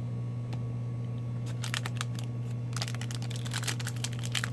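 A sealed 2019-20 Upper Deck CHL hockey card pack crinkling and tearing open in the hands, a run of dense crackles that starts about a second and a half in and thickens past the middle. A steady low hum runs underneath.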